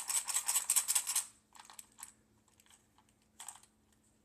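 Split-shot sinkers rattling in a small container as it is shaken to tip one out: a quick run of small hard clicks for about a second, then a few scattered clicks, one of them louder, near the middle and later.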